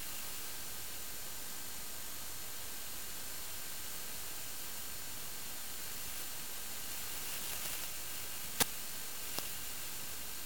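Steady static-like hiss, with one sharp click about two-thirds of the way in and a fainter click shortly after.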